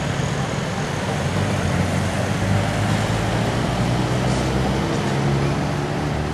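Road traffic running past: the steady hum of car and motorbike engines with tyre noise, one engine hum growing stronger through the middle and easing off again.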